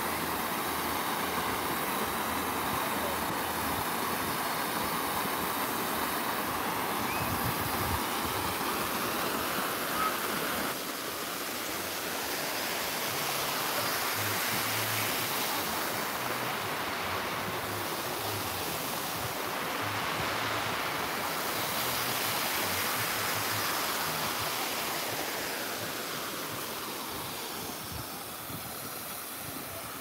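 Small waterfall cascading over granite rocks into a shallow pool: a steady rushing of falling water.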